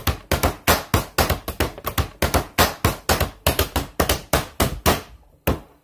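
A fast, even percussive beat of sharp taps, about five a second, that stops near the end.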